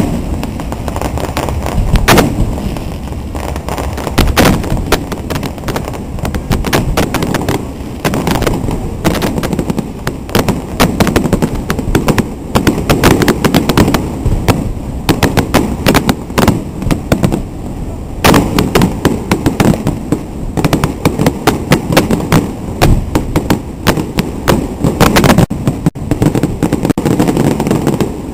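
Aerial fireworks going off overhead: a loud, dense barrage of sharp cracks and bangs, several a second and irregular, over a continuous low rumble.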